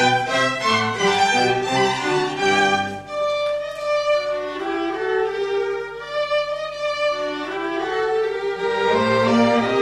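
Background music led by a violin playing a melody over accompaniment. About three seconds in, the low accompaniment drops away and the sound thins, then fills out again near the end.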